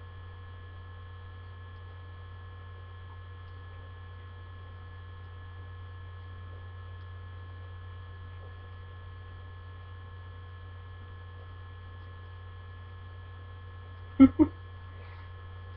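Steady low electrical hum with a few faint steady high tones above it, the noise floor of a webcam recording. A short voice sound breaks in once, about 14 seconds in.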